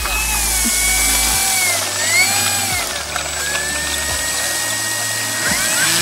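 Electric motor of an E-flite Cessna 150 foam RC model plane whining, its pitch gliding up and down several times as the throttle changes.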